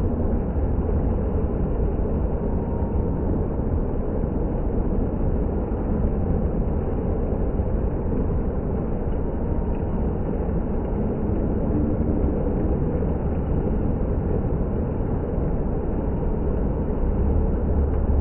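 Water fountain splashing: a steady, unbroken rush of falling water.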